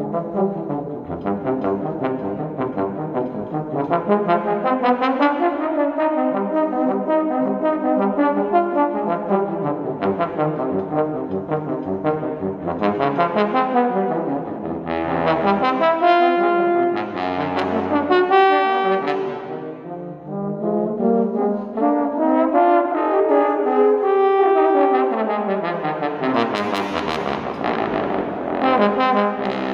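Brass duet of a slide trombone and a second brass instrument, playing sustained and moving notes. Near the end there are long slides in pitch, rising and then falling.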